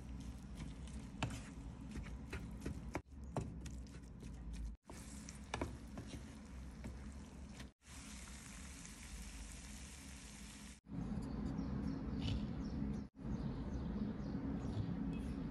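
Ground beef and onions frying in a frying pan: a steady sizzle with the scrape and clack of a spatula stirring and breaking up the meat. Near the end the sound changes to a louder, lower steady noise.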